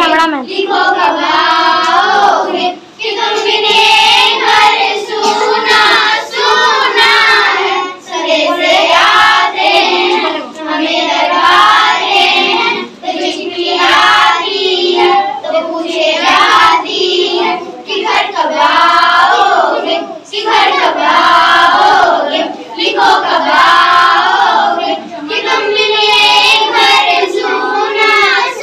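A group of schoolgirls singing a song together, one of them into a handheld microphone, in phrases of about two seconds with short breaks between them.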